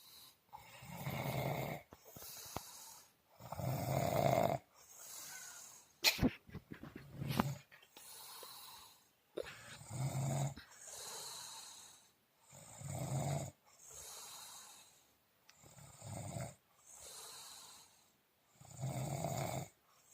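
Slow, regular snoring in deep sleep: a loud, low buzzing snore about every three seconds, each followed by a softer breath. There are a few sharp snorts or clicks a little after six seconds in.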